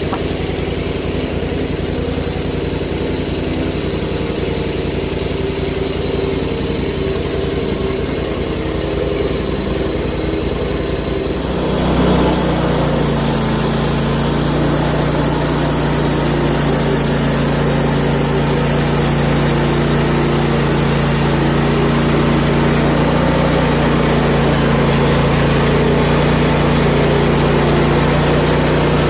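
Portable bandsaw mill's gasoline engine running steadily, then stepping up to a higher, louder speed about twelve seconds in as the band blade goes into another siding cut, with a steady rushing hiss of sawing from then on.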